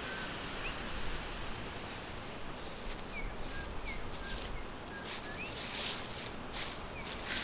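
Songbirds chirping in short, quick notes, some gliding up or down in pitch, over a steady hiss of forest ambience with brief rustles of leaves.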